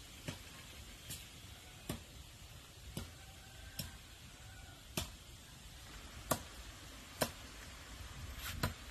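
Chopping with a hand blade on the ground, a sharp knock at each stroke, about once a second, the strokes unevenly spaced.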